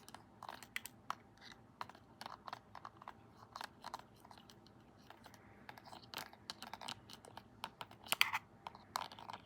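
Irregular light plastic clicks and taps from a remote control and a plastic straw, a few sharper clicks about eight seconds in.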